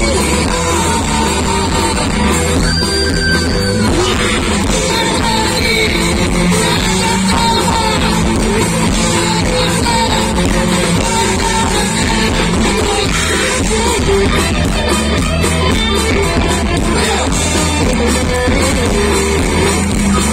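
Live rock band playing loud amplified music with electric guitar, bass and drums, with a singer's voice.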